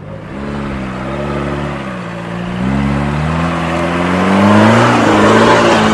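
A 4x4 SUV's engine revs under load, its pitch rising and falling several times. It grows louder about three seconds in.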